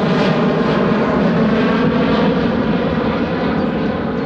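Boeing 737-800's CFM56-7B turbofan engines at takeoff thrust as the airliner climbs away: a loud, steady jet roar that eases slightly near the end.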